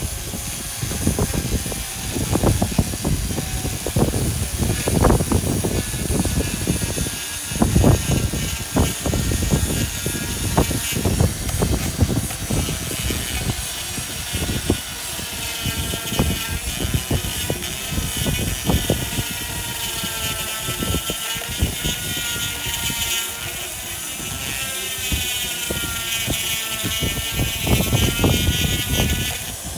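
Handheld power drill with a cylindrical grinding bit running against stone, smoothing the edges of a carved relief. A high motor whine wavers up and down in pitch as the bit bears on the stone, clearest in the second half, over an uneven low rumble.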